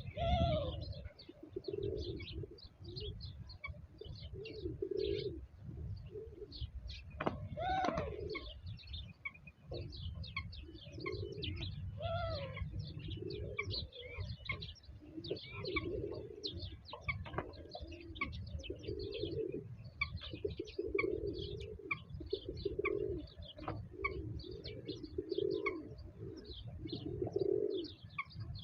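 Pigeons or doves cooing in low phrases about once a second, with small birds chirping busily and a steady low rumble underneath.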